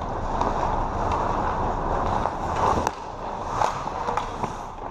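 Ice hockey skate blades scraping and carving on the ice, with several sharp clacks of sticks and puck.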